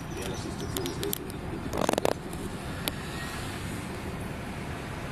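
Steady low outdoor rumble picked up on a phone microphone, with scattered small clicks and a brief loud burst of noise about two seconds in.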